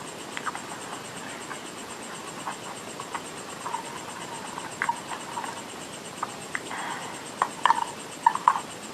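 Close-up mouth sounds of someone eating clay: irregular crunches and wet clicks, coming thicker and louder near the end.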